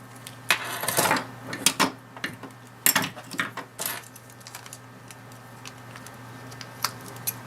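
Plastic case of a Jaguar S-Type remote key fob being pressed and snapped back together: several sharp clicks with handling scrapes in the first four seconds, then one more click near the end.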